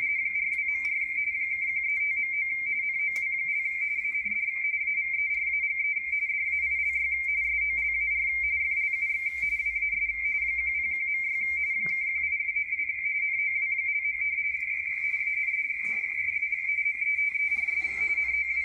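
Baudot radio teletype (RTTY) signal of the W1AW ARRL bulletin, 170 Hz shift, heard through a Yaesu FTdx10 receiver on 80 meters: a steady pair of high tones warbling rapidly back and forth as the characters are sent. A strong, stable signal that the radio decodes cleanly.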